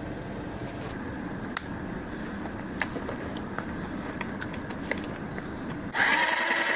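Small clicks and taps from handling cardboard and parts over a steady low fan hum, then about six seconds in a small DC gear motor (BO motor) switches on and whirs loudly with a high whine.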